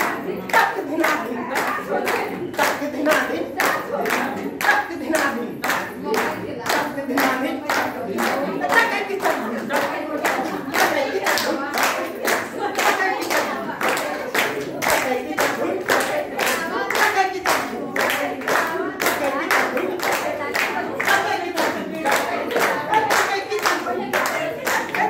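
A group clapping in steady time, about two claps a second, while singing together.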